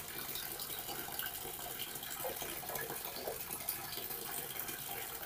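Water trickling steadily from the outlet pipe of a homemade five-stage PVC water filter, with a little liquid poured from one glass into another.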